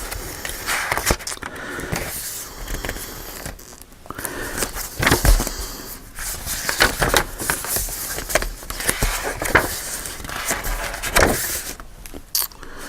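Paper and cardstock pages of a handmade journal being handled and turned: irregular rustling with short sharp clicks and taps, coming in bursts.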